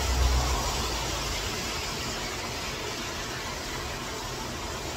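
Steady hiss of heavy rain, with the rush of a swollen stream mixed in, and a short low rumble at the very start.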